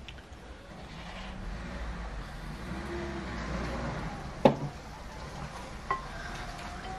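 Hands working raw goose pieces in a glass bowl: soft, wet mixing sounds. A sharp knock about four and a half seconds in, the loudest sound, and a smaller click near six seconds.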